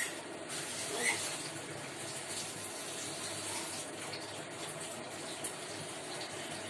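Sliced onions sizzling in hot oil in a frying pan, a steady hiss as they start to fry.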